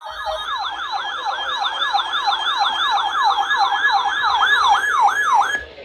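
Electronic siren in a fast yelp, its pitch sweeping down and back up about three and a half times a second. It cuts off suddenly just before the end.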